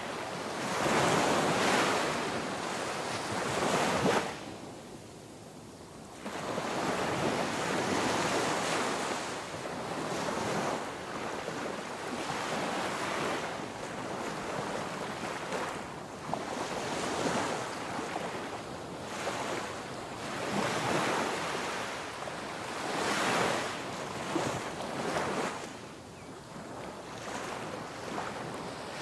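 Ocean surf: waves breaking and washing up the shore, the rush swelling and falling away every few seconds.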